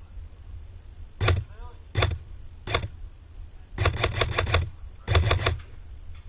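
Airsoft gun firing: three single shots less than a second apart, then a rapid string of about six shots, then a shorter string of about four.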